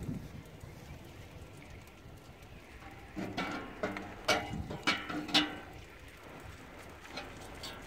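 A flat steel lifting tool knocking and clattering against a sheet-metal fire-pit tray: a quick run of sharp metal clanks, each with a short ring, about three seconds in, and two lighter taps near the end.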